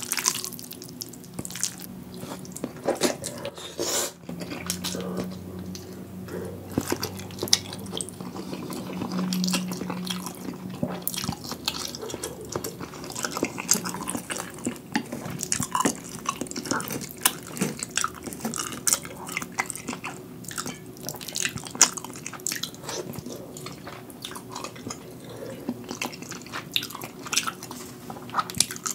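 Close-miked mouth sounds of eating saucy, sticky instant spicy ramen noodles: wet slurps, lip smacks and chewing, heard as a dense run of small, sticky clicks.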